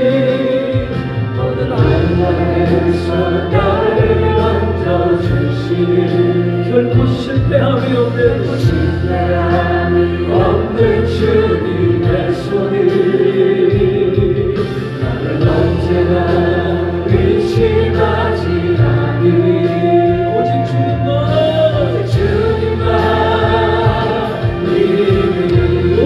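Gospel music: a choir singing over a held, sustained bass accompaniment.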